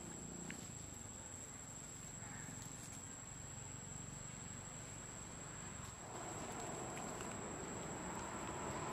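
Steady high-pitched insect drone, with a few faint ticks. About six seconds in, a lower hum joins it and the sound gets a little louder.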